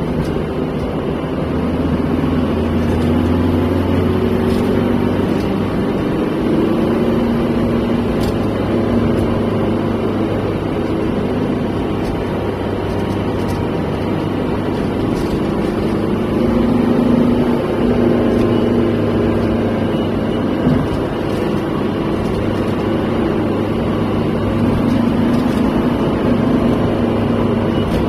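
Steady engine and tyre noise heard inside a moving car's cabin, a low drone that swells slightly now and then.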